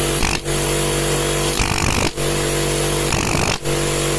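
Electric air compressor running steadily with a hum and a motor whine, started unloaded through a check-valve unloader so that it spins up freely instead of humming stalled. The sound dips briefly a few times.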